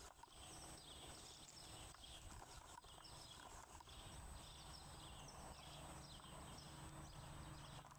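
Near silence: faint outdoor background noise, with soft, short high chirps repeating about twice a second.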